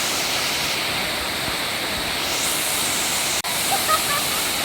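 Waterfall's falling water making a steady, even rush; the sound cuts out for an instant about three and a half seconds in.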